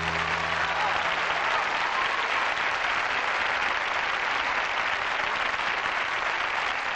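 Studio audience applauding steadily, a large crowd clapping. A held low chord from the band rings on under the clapping and fades out in the first second or so.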